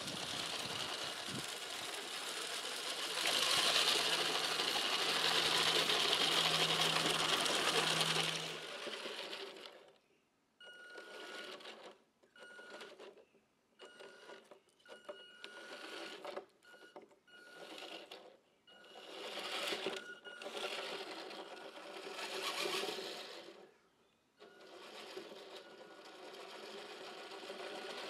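Electric drive motor and 3D-printed gearboxes of a homemade 1/6-scale RC ZIS-5B truck whining as it drives over grass. The whine runs steadily for the first several seconds, then comes in short bursts of throttle with brief gaps between them.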